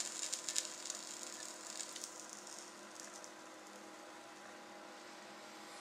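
Faint crackle and hiss of cannabis burning in the bowl of a glass hand pipe under a lighter flame as a hit is drawn, with small pops, dying away after about two and a half seconds. A low steady hum remains after that.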